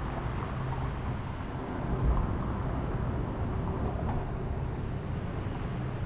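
Steady low rumble of city street traffic, with one short low thump about two seconds in and two faint clicks a little later.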